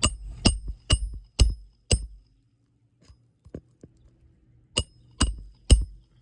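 Hammer driving roofing nails into a replacement asphalt shingle: five quick blows about two a second, each with a short metallic ring, a pause with a couple of light taps, then three more blows.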